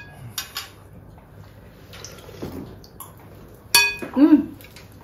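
Spoons and chopsticks clinking against ceramic bowls at a meal: a couple of sharp, ringing clinks just after the start and a louder one near the end. A short vocal sound follows the last clink.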